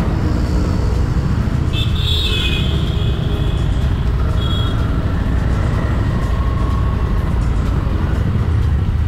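Harley-Davidson Street Rod 750's V-twin engine running in slow city traffic, with a steady low rumble and wind noise on the microphone. A short high tone cuts in about two seconds in and again briefly about four and a half seconds in.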